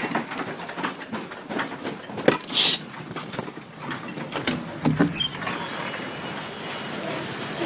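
Irregular knocking and rattling of loose objects in a room shaken by a strong earthquake, mixed with the rubbing and bumping of a handheld phone. A short, loud hiss comes a little before the middle, and a dull thump a little after it. Then the sound settles into a steadier background noise.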